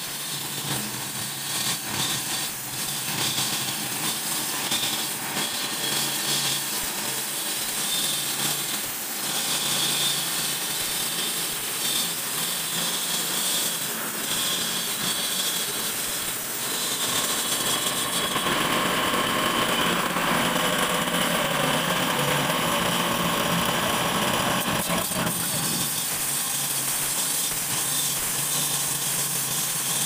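Walk-behind concrete saw, a small gasoline engine belt-driving a water-cooled blade, running steadily as the blade cuts a joint into a concrete slab. The cutting grows louder and harsher a little past halfway through.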